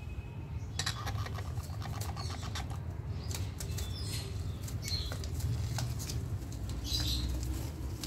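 Rustling and light clicking as an Indian ringneck parakeet clings to and climbs on a wire cage, over a steady low rumble. Short high squeaks come about five seconds in and again near the end.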